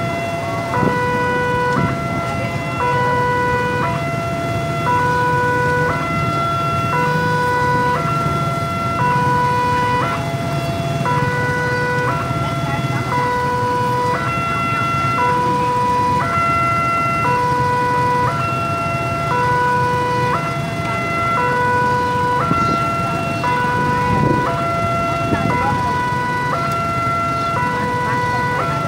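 Indonesian railway level-crossing warning alarm sounding its electronic two-tone signal, a high and a low tone alternating about once a second, warning that a train is approaching with the barrier down. The low rumble of waiting traffic runs underneath.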